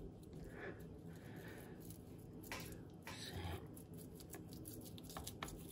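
Faint, soft scraping and squishing as a wooden stamp is pressed and wriggled into damp excavator clay, with a few light clicks near the end.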